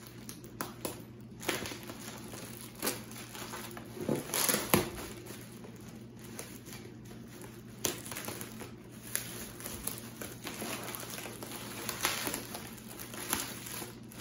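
Packing material crinkling and rustling as a package is unwrapped by hand, with scattered small knocks of handling. It comes and goes, with a louder burst about four to five seconds in.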